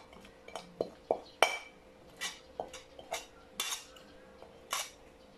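Metal spoon scraping and clinking against a metal cooking pan as food is scooped out of it, about ten sharp, irregularly spaced scrapes and knocks.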